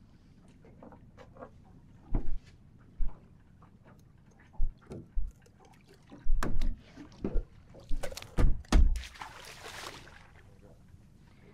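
Knocks and thumps against a small fishing boat's hull and gunwale as a conger eel is unhooked and handled over the side, then a splash about nine seconds in as the eel is dropped back into the sea.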